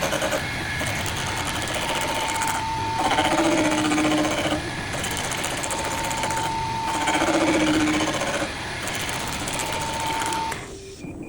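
CNC woodworking lathe running on a wooden leg: a fast, rattling machine chatter with motor whines that change pitch in a repeating cycle of about four seconds. The machine noise stops about ten and a half seconds in.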